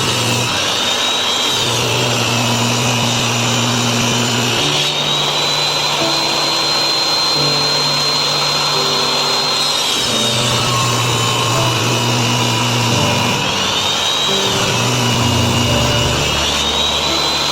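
Electric woodworking power tool running on solid wood, its high motor whine dropping in pitch twice as it bogs under load and then recovering. Background music plays underneath.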